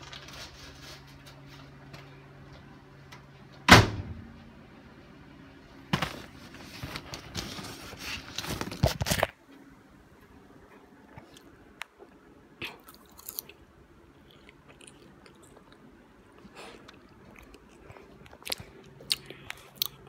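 A sharp knock, then a few seconds of crinkling and tearing paper as a microwave popcorn bag is pulled open, followed by quieter intermittent crunching of popcorn being chewed.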